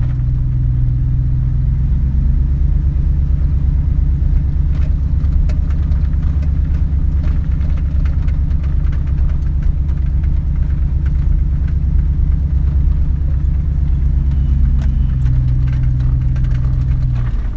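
Pickup truck's exhaust, straight-through mufflers with two X-pipes, droning steadily at low rpm while cruising, heard from inside the cab.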